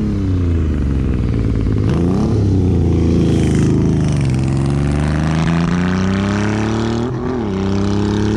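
Motorcycle engine passing at speed and accelerating through the gears. The revs climb and drop sharply at each shift, several times over.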